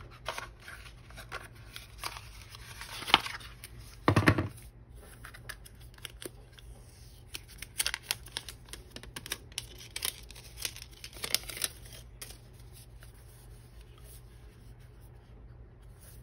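Hands handling an earbud box's packaging: the charging case is lifted out of its paper tray and a thin protective plastic film is peeled off it, with rustling, scratchy peeling and small clicks. It is loudest about 3 and 4 seconds in, with a run of sharp clicks in the middle and only quieter handling near the end.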